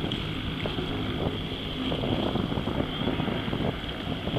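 Wind buffeting the microphone in uneven gusts, over the faint, steady drone of a distant twin-engine floatplane's propellers as it taxis on the water.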